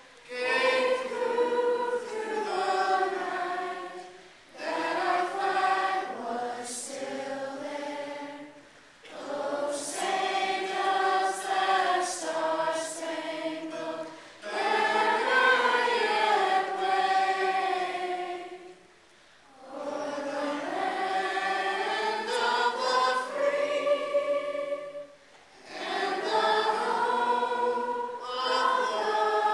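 A choir singing in about six phrases of a few seconds each, with short breaths of near-silence between them.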